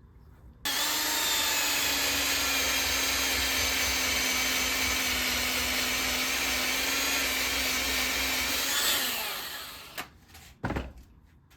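Small electric polisher buffing car polish into a freshly repaired guitar finish. It switches on under a second in, runs with a steady whine for about eight seconds, then spins down with falling pitch, followed by a couple of light knocks.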